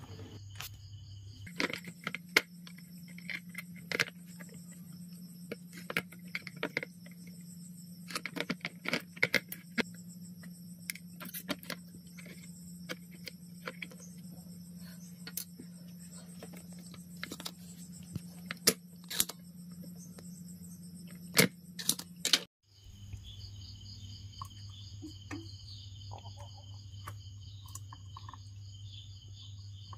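Crickets chirping steadily in the background over a low steady hum, with scattered light clicks and taps from work on the circuit board as capacitors are desoldered. The sound cuts out for a moment about three quarters of the way in.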